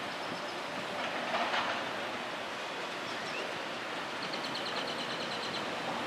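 Steady outdoor background noise, with a quick run of high-pitched ticks about four seconds in that lasts about a second and a half.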